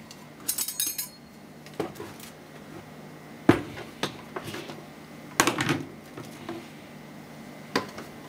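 Kitchen utensils being handled on a counter: a plastic measuring cup and the lid of a plastic flour canister knocking and clicking. There are scattered knocks, the loudest about three and a half seconds in and a quick cluster around five and a half seconds.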